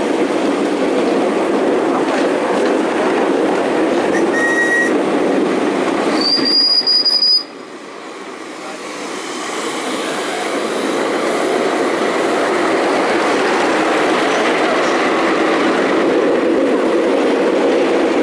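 Miniature park railway train running along its track: a steady rolling rumble of small steel wheels on rail, with a short high wheel squeal near the end of the first half. The sound breaks off suddenly about seven seconds in, then a steady running noise builds back up.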